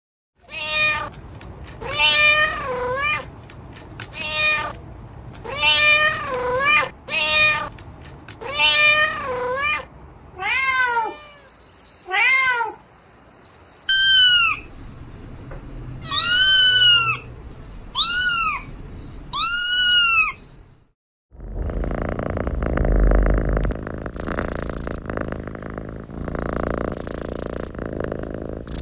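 Cats meowing, about a dozen separate meows, the later ones higher-pitched and arched like kittens' calls. About two-thirds of the way in they give way to a steady, rough purring.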